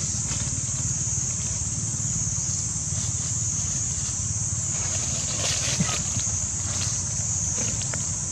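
A steady, high-pitched insect drone over a constant low rumble, with a few faint clicks about five to six seconds in.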